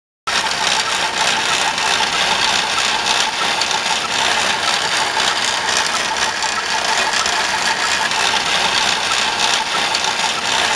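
A machine running steadily with a fast, even rattle.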